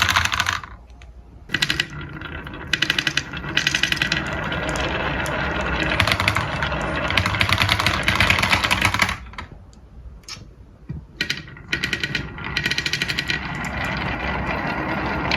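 Marbles rattling down a wooden marble run track in fast runs of small clicks, with two brief lulls, one about a second in and one near two-thirds of the way through.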